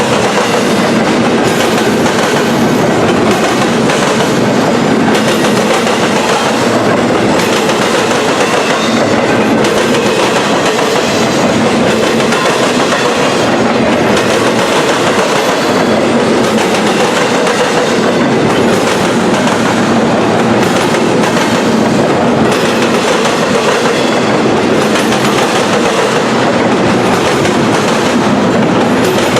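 Freight train passing at close range, its cars rolling by with a steady clickety-clack of wheels over the rails.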